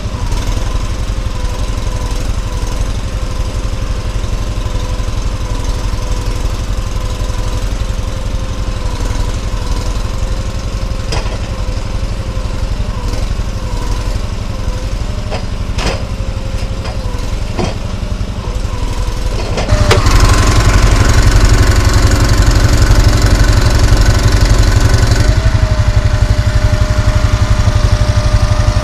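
Engine running steadily under a wavering whine while a hydraulic crane on an ATV timber trailer lifts a log, with a few sharp knocks through the middle. About two-thirds of the way through the sound jumps louder and closer, with more engine rumble.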